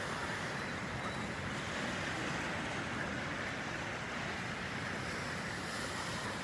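Ocean surf washing onto the beach in a steady, even rush.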